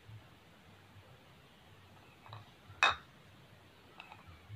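A metal spoon clinking against a clear bowl: one sharp clink near the three-second mark, with a fainter tap just before it and another faint tick near the end, over a quiet background.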